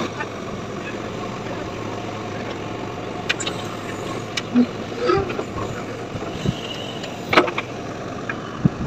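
JCB 3DX backhoe loader's diesel engine running steadily under working load as the backhoe digs soil, with several sharp knocks from the bucket and arm.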